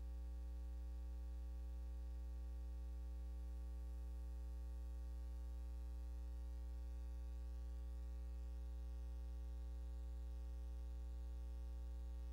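Steady electrical mains hum with faint hiss, unchanging throughout: a low drone with a ladder of higher overtones.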